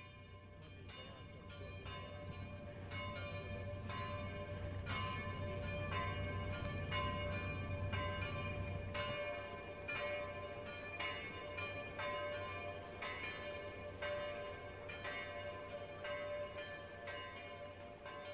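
Church bells ringing, a run of struck notes of different pitches about two a second, each ringing on. A low hum underneath stops about halfway through.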